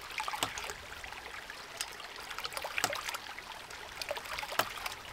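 Land To House 1-inch hydraulic ram pump cycling on its own: its waste valve snaps shut with a sharp knock about every two seconds, between smaller clicks, over steadily trickling creek water. With the delivery end closed off, each stroke builds pressure in the pump's tank.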